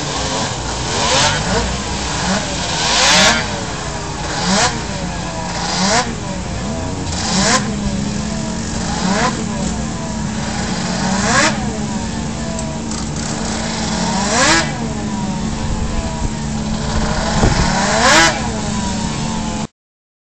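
Snowmobile engines revving in repeated throttle blips, each rising sharply and falling back, over a steady idle. The sound cuts off suddenly just before the end.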